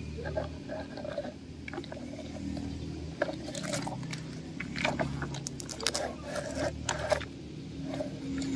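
Plastic toy truck wheels crunching and scraping over dry dirt and small stones as the truck is pulled along, with irregular clicks and crackles over a steady low hum.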